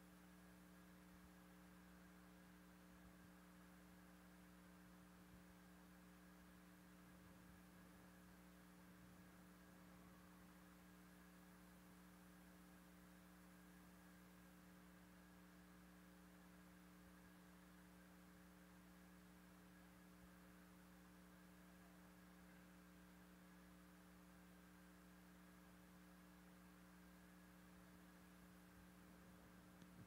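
Near silence, with a faint steady hum made of a few held tones over light hiss.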